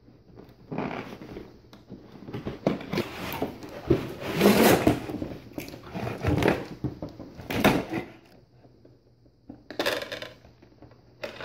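A cardboard toy box being opened and its packaging handled: irregular rustling and scraping of cardboard and plastic, loudest about halfway through, with a couple of short bursts near the end as a hand reaches in to the toys.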